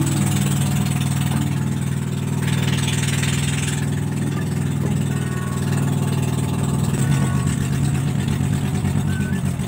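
Motor of a bangka outrigger boat running steadily under way, picking up a little from about seven seconds in.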